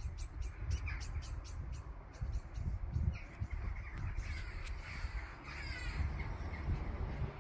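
Crows cawing several times over a steady low rumble.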